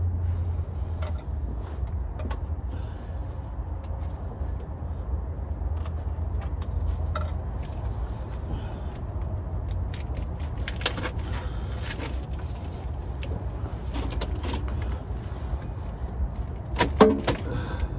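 Scattered metallic clicks and clinks of hand tools working on bolts under a truck during a transmission removal, with a quick cluster of sharp clicks near the end the loudest, over a steady low hum.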